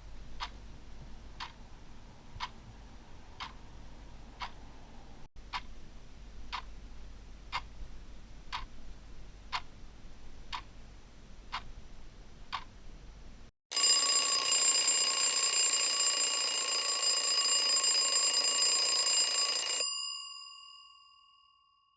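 Clock ticking once a second. About fourteen seconds in, an alarm clock starts ringing loudly, signalling that the countdown has reached zero. It rings steadily for about six seconds, then fades away.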